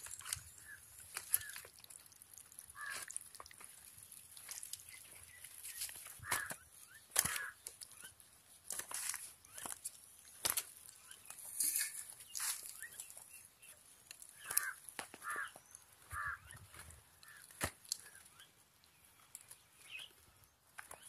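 Scattered wet squelches, clicks and taps of bare hands scooping masala-coated chicken and packing it into a banana-leaf-lined hollowed watermelon, with a handful of short bird-like calls and a steady high hiss behind.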